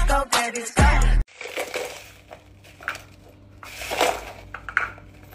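Hip-hop music that cuts off about a second in. After it come scattered clinks and cracks of ice cubes being handled and released from an ice cube maker, the loudest about four seconds in.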